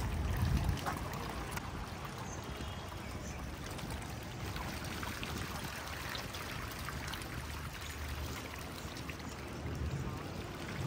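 A crowded school of tilapia splashing and churning at the pond surface as they feed: a steady watery splashing made of many small slaps.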